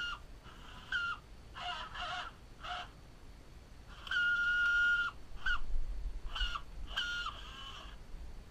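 A bird's repeated squawking calls: about eight short, pitched cries, with one held for about a second near the middle.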